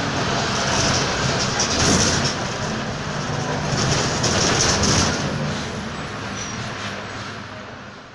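Mercedes-Benz OF-1722M city bus's diesel engine and drivetrain running while the bus is under way, with the differential growling. It swells twice, about two and five seconds in, then fades out near the end.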